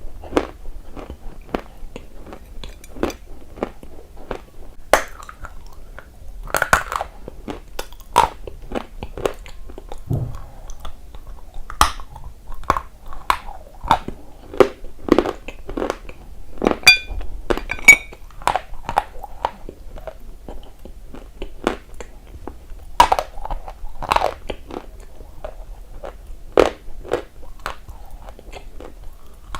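Close-miked biting and chewing of a dry, crunchy piece of edible earth (clay or chalk type), a steady run of sharp, irregular crunches with no speech.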